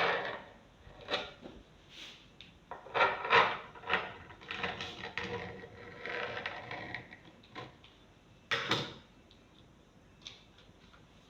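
Improvised pastry cutter knocking and scraping against the work surface as shapes are cut from rolled pie dough: a string of short knocks with rubbing in between, the loudest right at the start and another sharp knock about eight and a half seconds in.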